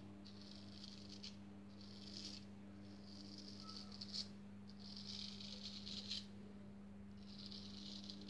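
Freshly honed Kropp straight razor scraping through lathered stubble on the neck against the grain: about five short, faint rasping strokes, each the crisp crackle of the edge cutting whiskers.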